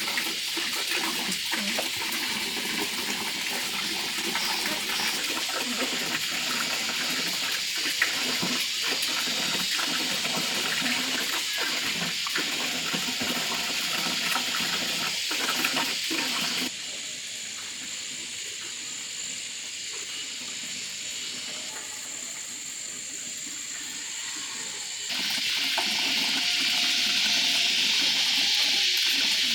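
Steady rush of running water, with a few light knocks in the first half; the sound changes abruptly twice, dropping quieter about two-thirds of the way through and coming back louder near the end.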